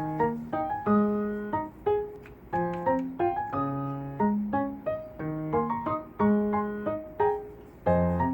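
Background piano music: soft notes and chords struck about once a second, each fading away before the next.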